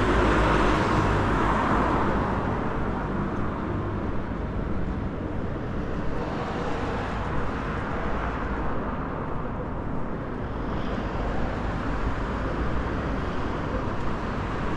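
City street traffic noise: a vehicle passing near the start and fading over the first couple of seconds, then a steady hum of road traffic.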